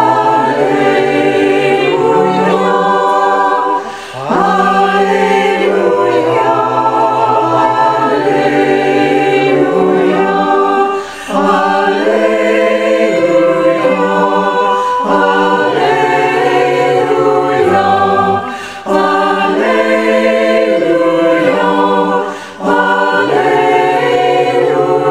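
Unaccompanied choir singing a sacred piece in several parts. It comes in phrases, with short breaks for breath about four times.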